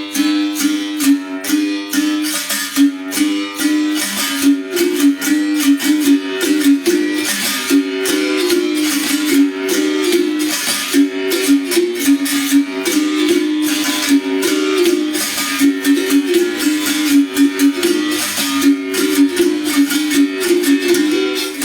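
Bamboo berimbau played without a break, its wire struck by a stick in a quick, repeating rhythm that switches back and forth between two notes.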